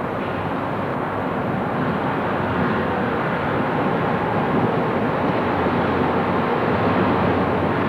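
Steady rushing engine and road noise of a car driving at night, with a low hum underneath, growing slowly a little louder.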